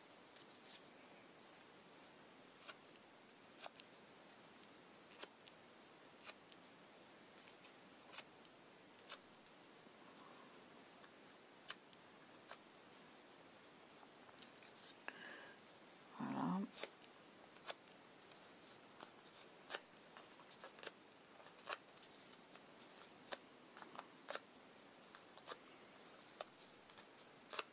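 Small scissors snipping paper: a long run of short, crisp cuts at irregular intervals, coming more often in the second half, as small flower petals are trimmed from blue paper.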